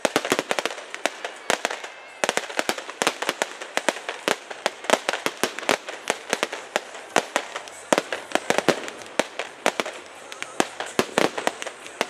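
Fireworks going off in quick succession: a dense run of sharp cracks and bangs, several a second, with no let-up.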